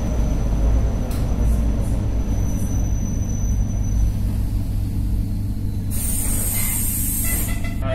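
ER9M electric train running on the rails with a steady low rumble. About six seconds in comes a sharp hiss of released air lasting under two seconds, as the train nears a station stop.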